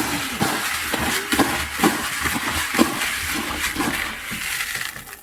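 Dry pigeon grain, a corn mix with barley, being mixed together: a continuous dense rustling rattle of seeds with many small clicks, easing off near the end.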